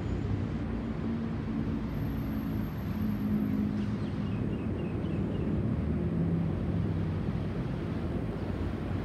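Airbus A320-232's IAE V2500 turbofan engines heard as a steady low rumble from the airliner passing high overhead, its drone slowly falling in pitch.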